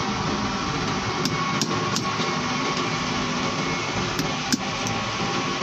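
Hammer tapping a punch set against a power steering pump body, six sharp metal taps in two groups of three, over a steady background noise.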